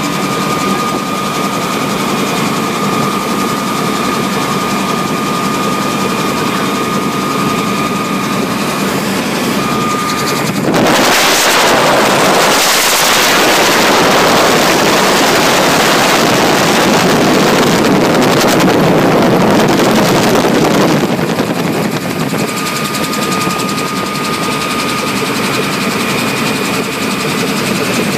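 Helicopter heard from inside the cabin, its engine and rotor running steadily with a steady high whine. About ten seconds in, a louder rushing wind noise on the microphone covers everything for about ten seconds, then the steady whine returns.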